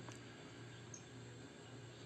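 Near silence: faint room tone with a low steady hum and a slight click at the start.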